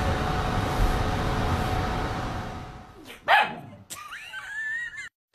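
A calico cat gives a short, sharp bark-like call about three seconds in, followed by a wavering, higher-pitched sound near the end. Before the call, a loud rushing noise fades away over the first three seconds.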